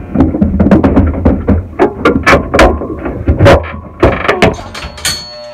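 Electric livestock clippers humming as they shave a goat's tail, with loud clattering knocks from handling. The hum cuts off near the end.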